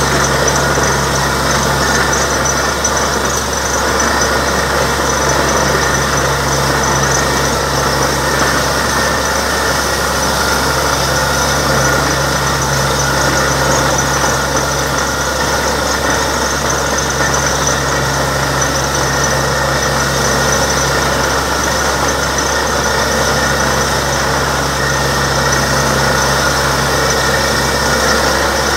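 Borewell drilling rig running steadily, with compressed air blowing water and rock slurry out of the bore around the drill pipe as a constant hiss over the machinery.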